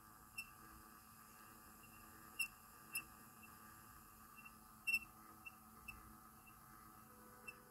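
Pyle PT-659DU dual cassette deck running with a faint steady whir of gear noise and about seven short, high squeaks at uneven intervals, the loudest about five seconds in, like a squeaky mouse. The noises come from a faulty tape transport.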